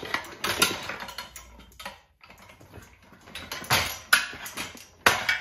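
Irregular clicks, knocks and scraping as a knobby dirt-bike tire is levered and pulled off a spoked rim on a Rabaconda tire changer, with the tool clacking against the rim and the stand. The loudest clatter comes in the second half.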